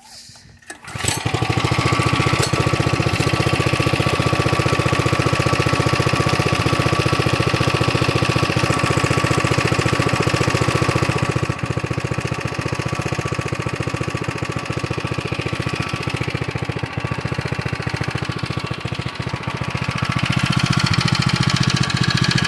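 Coleman CC100X mini bike's small single-cylinder four-stroke engine pull-started, catching about a second in, then running steadily. The engine's sound eases off about halfway through and picks up again near the end. It still sounds like a champ: the engine is unharmed by the crash.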